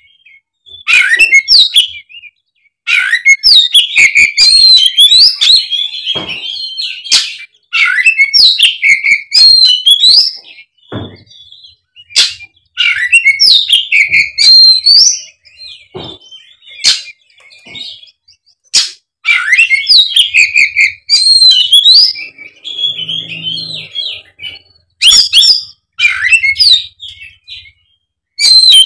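Oriental magpie-robin singing loudly in its fighting mode, with a varied song full of mimicked notes. It comes in bursts of quick, sweeping whistled phrases one to three seconds long, with short pauses and a few sharp clicks between them.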